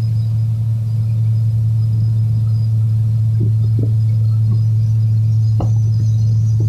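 Boat motor running steadily at speed while towing a tube: a loud, unchanging low drone. There are a few faint short knocks about midway.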